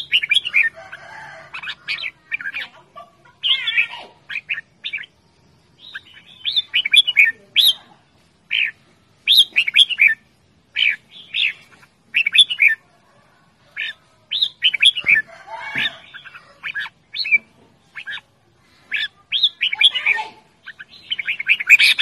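Red-whiskered bulbul singing: short, quick phrases of notes, one after another with brief pauses between them.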